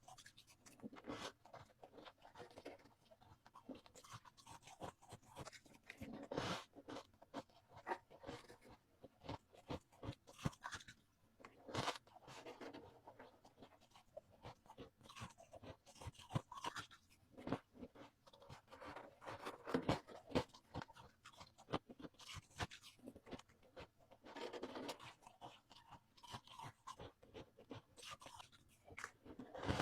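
Ice being bitten and chewed: many sharp, irregular crunches and cracks with short clusters of crackling between them.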